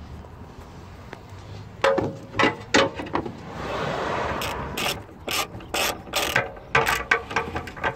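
Ratchet wrench clicking in short irregular runs as the bolts of a new rear-silencer hanger are tightened, starting about two seconds in, with a brief rushing scrape in the middle.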